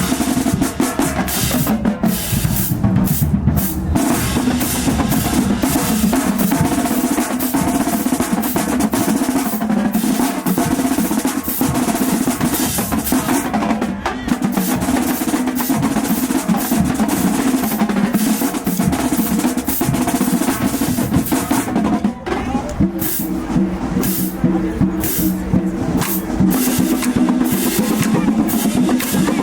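A marching band playing on the march: snare and bass drums drive a steady beat under held instrument notes, with a short break in the music about two thirds of the way through.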